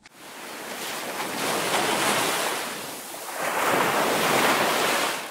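Ocean surf: waves washing in, two swells of rushing water, the second a little louder, fading out at the end.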